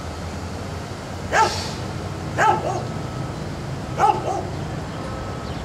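A dog barking, four single barks spaced a second or so apart, the last two close together, over a steady low rumble.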